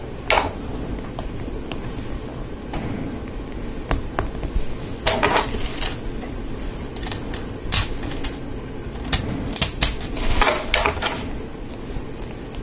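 Plastic Lego Technic parts clicking and clattering as they are handled and pressed onto a gearbox assembly: scattered single clicks, with quick runs of clicks about five seconds in and again around ten seconds in.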